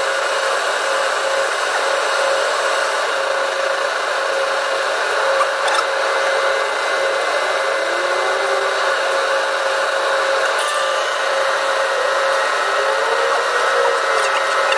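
Carrier central package air-conditioning unit running: a steady hiss with a constant hum tone, and two faint arching whistles in the second half.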